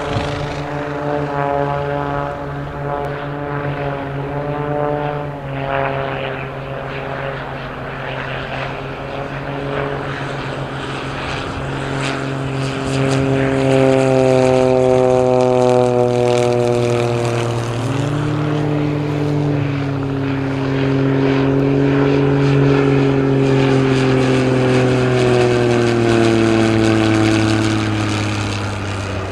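Extra 300 aerobatic monoplanes flying past, their propeller and six-cylinder piston engines running at high power. Twice the engine note falls in pitch as an aircraft passes, about halfway through and again near the end, and it is loudest in the second half.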